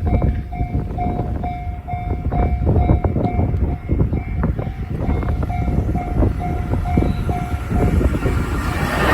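Long 26-car freight train, hauled by an EF210 electric locomotive, rolling past: wagon wheels clacking over rail joints in an uneven rhythm over a steady rumble. A pulsing tone repeats about two or three times a second and stops near the end.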